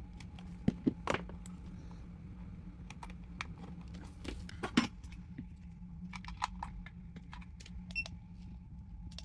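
Irregular small clicks and light metallic clinks, the sharpest about a second in and near five seconds, over a steady low hum with a faint constant whine.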